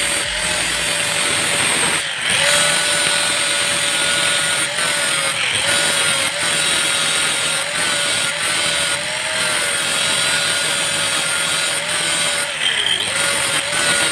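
Electric angle grinder with an abrasive disc grinding rust off a steel 19 mm spanner: a steady motor whine over a grinding hiss. The pitch dips briefly several times as the disc is pressed into the metal.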